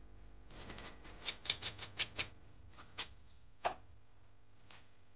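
Needle file scraping a small white plastic part in quick short strokes, about six in a row, then a few single strokes.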